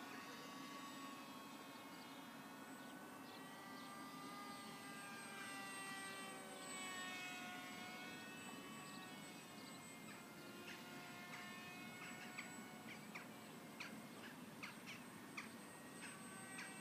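Distant whine of a radio-controlled flying wing's small electric motor and propeller, its pitch drifting slowly up and down as the model flies and changes throttle. In the second half there are short, high chirps.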